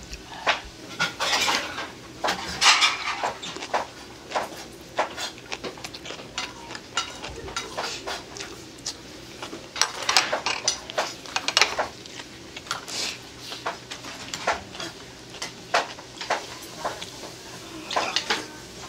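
Stainless-steel chopsticks clicking and clinking against plates and bowls in irregular runs of sharp ticks as food is picked up, with eating and chewing between.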